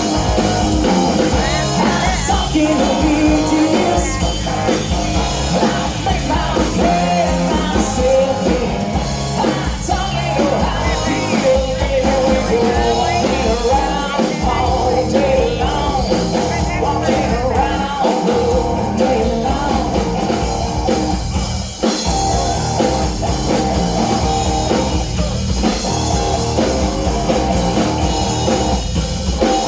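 A rock band playing with a lead voice singing over guitar, bass and drums.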